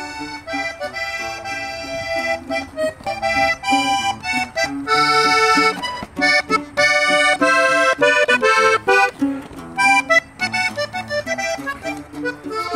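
Button accordion playing a quick melody, with a guitar strumming along underneath, as the instrumental introduction to a norteño song.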